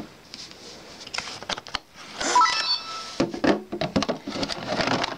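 Plastic LEGO bricks clicking and knocking as a LEGO Mindstorms safe's tray is handled and pushed in, with a busier stretch of clatter and a short mechanical whir near the middle.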